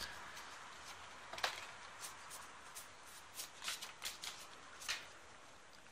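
A stack of Pokémon trading cards being thumbed through in the hand, card sliding over card: faint, irregular soft flicks, roughly one every half second.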